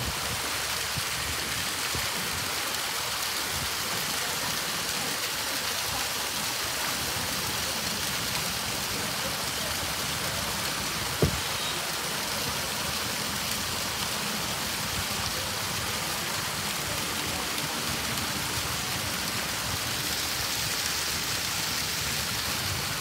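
Steady rush of water splashing into the seal pool, with one sharp click about eleven seconds in.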